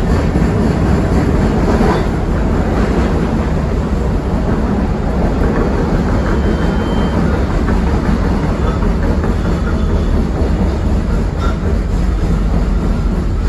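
CTA 2600-series rapid-transit car running along the track, heard from on board: a steady, loud rumble of wheels on rail with some clickety-clack.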